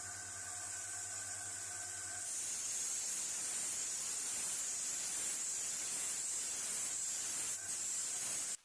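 Power sanding of a steel ratchet bar. A steady motor hum for about two seconds, then a loud, steady, high hiss of abrasive on metal that cuts off suddenly near the end.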